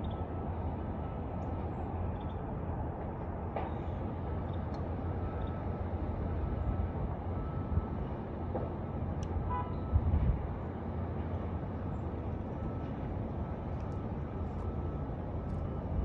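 Steady low outdoor background rumble with a few faint, short, high bird chirps scattered through it, and a brief low thump about ten seconds in.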